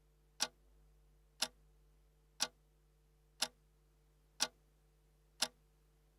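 A clock ticking once a second: six sharp ticks over a faint steady low hum.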